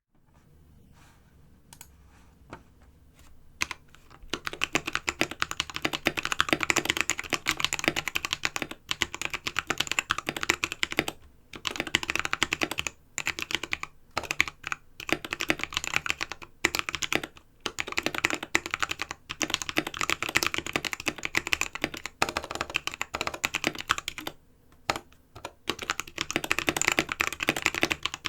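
Modded Anne Pro 2 mechanical keyboard being typed on, its lubed Halo Clear tactile switches in a steel plate and aluminium case sitting on a bare desk without a mat. A few scattered keystrokes come first, then steady typing from about four seconds in.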